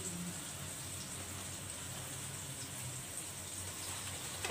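Steady sizzle of flour-coated chicken pieces deep-frying in hot oil over a medium flame.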